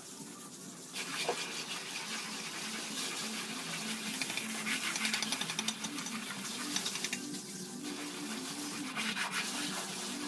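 Gritty scraping and rubbing as wet mortar and concrete hollow blocks are worked by hand, in uneven spells with a short lull about seven seconds in, over a soft background melody.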